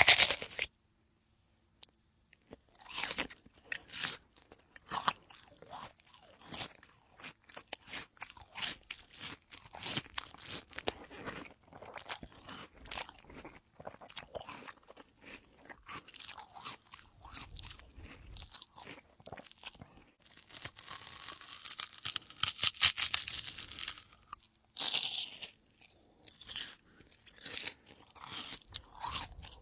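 A person biting into a crisp apple and chewing it with open-mouthed crunching, close to the microphone. A loud bite comes right at the start, then irregular crunchy chewing, with a longer, louder stretch of crunching about twenty seconds in.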